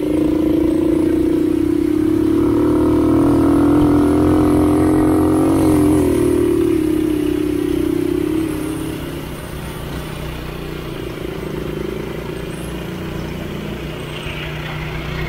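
Mini bike's Predator 212cc single-cylinder four-stroke engine running under throttle at a steady pitch, then clearly quieter from about eight seconds in.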